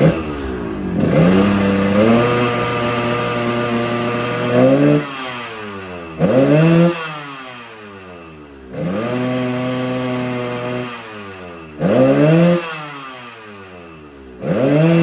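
Yamaha RX King's single-cylinder two-stroke engine, freshly ported and bored oversize, being free-revved through a 'ngorok' exhaust filter. It is revved up and held for a few seconds twice, with short blips of the throttle in between and near the end.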